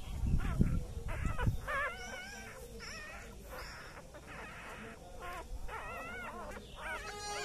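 A puppy whining: a run of short, high, wavering cries. Low thumps during the first second and a half.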